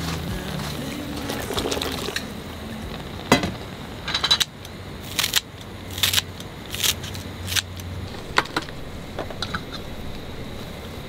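Background music ending about two seconds in, then a run of separate sharp clicks and taps, roughly one a second, over a low steady hum that stops about eight seconds in.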